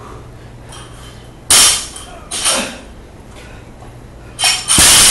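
Loaded barbell with bumper plates banging on a rubber lifting platform during snatches: a loud bang about a second and a half in, a weaker one about a second later, and a longer loud clatter near the end as the bar is dropped.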